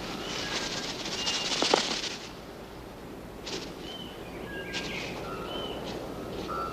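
Forest birds calling with short whistled notes over a steady hum of forest ambience, with a burst of rapid scratching and rustling in the first two seconds, peaking in one sharp knock, and a few brief sharp taps later.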